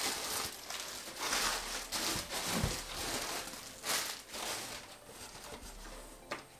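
Plastic air-pillow packing crinkling and rustling as it is handled and pulled out of a cardboard box, with irregular crackles.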